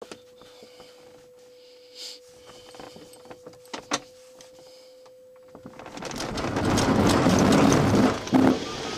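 Glider cockpit with a steady single tone and a few clicks and knocks, then about six seconds in a loud rush of wind and rolling rumble builds quickly as the Speed Astir glider accelerates on its launch across the grass.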